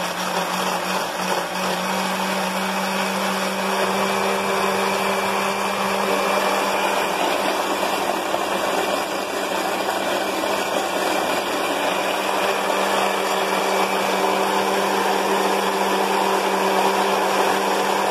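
Countertop blender running at a steady speed, puréeing soaked guajillo chiles, garlic, onion and ginger with water into a chile salsa. The motor gives a constant low hum under a steady churning whir.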